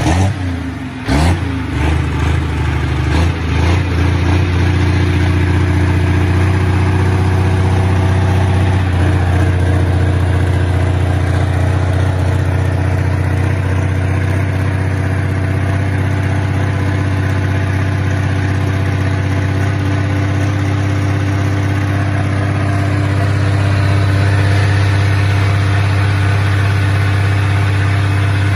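Turbocharged pulling-tractor engine revved in a few quick blips during the first few seconds, then idling steadily.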